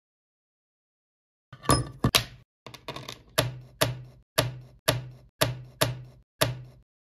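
A quick series of short, sharp hard-plastic clacks, about two a second, beginning about a second and a half in, as 3D-printed plastic gears and parts are set down on a cutting mat one after another.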